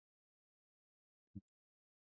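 Near silence, broken by one faint, short low knock just past halfway.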